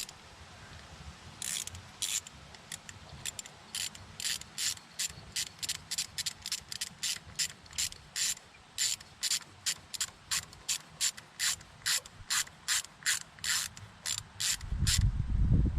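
Ratchet wrench turning in quick, even clicks, about two to three a second, as the bolt holding a new ignition coil on a 2005 Nissan Sentra engine is driven in. A louder low rumble comes in near the end.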